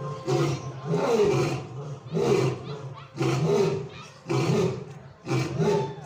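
Lion roaring: a run of deep, short roars repeating about once a second.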